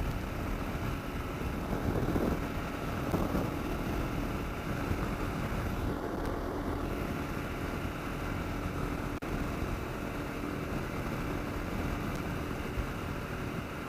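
Wind buffeting the helmet microphone over the steady running of a Kawasaki KLR 650's single-cylinder engine at cruising speed.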